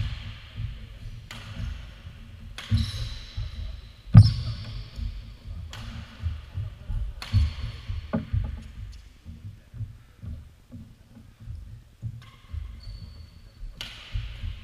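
Badminton rally: racket strings hitting the shuttlecock with sharp cracks every second and a half or so, the loudest about four seconds in, then a pause until near the end. There are short high squeaks and a low rumble under the hits.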